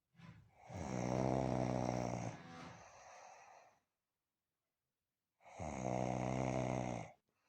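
A person snoring: two long, steady-toned snores, each about a second and a half, with a silent pause between them.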